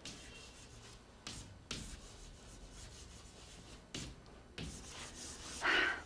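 Chalk writing on a chalkboard: a series of short scratchy strokes, with a longer, louder stroke near the end.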